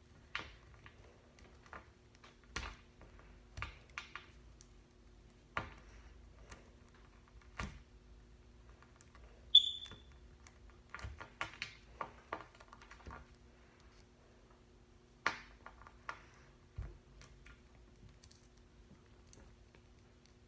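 Small plastic doll and its clothes clicking and tapping in the hands as an L.O.L. Surprise doll is pushed into its outfit: scattered irregular clicks, with a brief high squeak about ten seconds in, over a faint steady hum.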